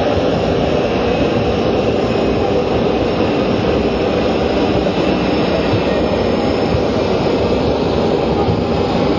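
City traffic noise: a steady, loud hum of vehicles without a break.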